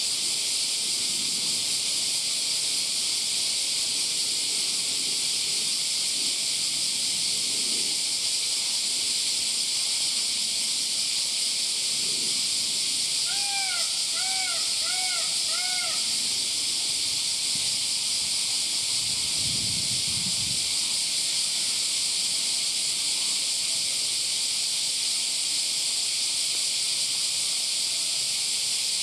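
Steady, dense drone of a summer cicada chorus. A bird gives four short, arching calls about halfway through. Underneath, a giant panda eating bamboo comes through now and then as faint rustling and crunching, most plainly a little past two-thirds of the way in.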